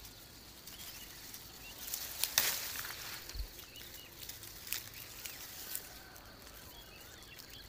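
Dry grass stems rustling and crackling as a hand pushes through and picks them, loudest about two seconds in, with faint bird chirps behind.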